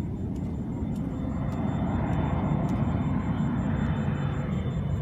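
Jet engine noise of a Boeing 777 freighter and its twin GE90 turbofans on landing: a steady deep rush that swells to a peak about midway and then eases a little.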